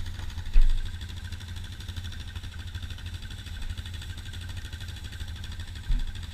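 ATV engines idling steadily, with two short low thumps, about half a second in and again near the end.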